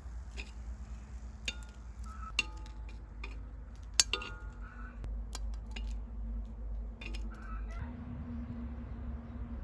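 Eating utensils clinking against bowls and pans, several sharp clinks that ring briefly.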